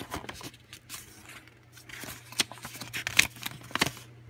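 A glossy paper instruction booklet being opened and its pages handled: irregular crisp rustles and sharp paper snaps, the loudest in the second half. A steady low hum runs underneath.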